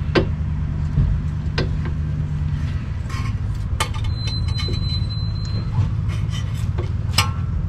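Scattered metallic clicks and knocks of tools and the brake caliper being bolted back onto the front wheel hub, over a steady low hum.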